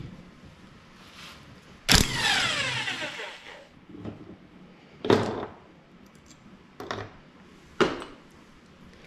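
Enertwist cordless 1/2-inch impact wrench with a 24 mm socket run in one short burst about two seconds in, to break loose the flywheel nut on a Kawasaki 340 snowmobile engine. The motor winds down with a falling pitch, then a few sharp metallic clinks follow.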